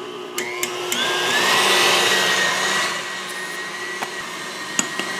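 Electric stand mixer with a wire whisk beating egg whites and cream of tartar: the motor's whine rises over about the first second and a half as it speeds up, then runs steady, with a few light clicks. The whites are starting to froth.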